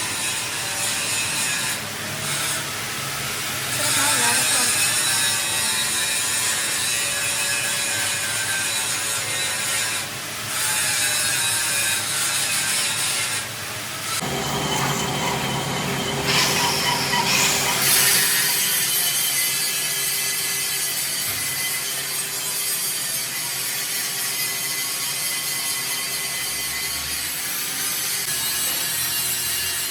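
Steel of a bulldozer drive sprocket being ground or machined: a steady scraping metal-working noise that changes abruptly several times.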